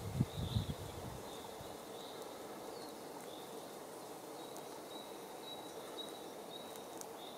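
Quiet outdoor ambience by a pond: a steady soft hiss with a thin, high chirping that repeats every fraction of a second. A wind rumble on the microphone dies away within the first second.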